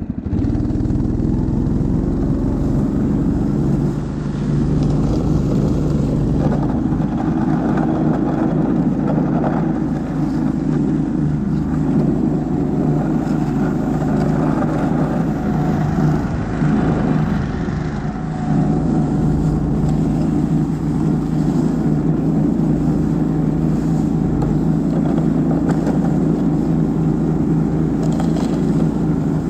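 Engine of a Husky motorized towing unit (motor-dog) running steadily while it tows over snow. The note dips briefly about four seconds in and again around eighteen seconds.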